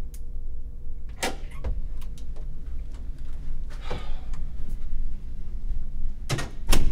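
Door being handled: a few scattered clicks and knocks over a low rumble, a brief scrape in the middle, and two sharp knocks in quick succession near the end.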